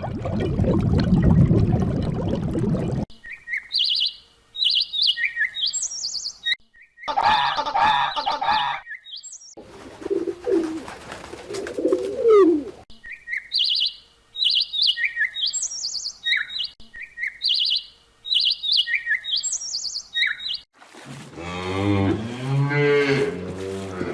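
A string of animal calls cut one after another: a small bird chirping in quick short high notes, broken by other animal calls, including low gliding calls, and a deep wavering call near the end.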